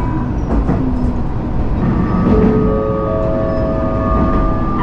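Running noise of a Matsuura Railway diesel railcar heard from inside: a steady low rumble. About two seconds in, several steady tones join and overlap, then drop away near the end.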